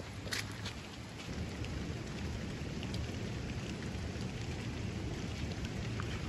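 Steady rain falling on wet ground, with a low rumble underneath and a few sharper drop ticks.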